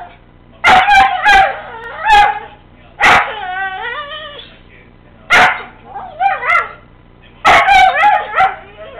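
Two dogs play-wrestling and vocalizing loudly: a string of short, high, yelping barks and yowls every second or so, with one longer wavering yowl about three seconds in.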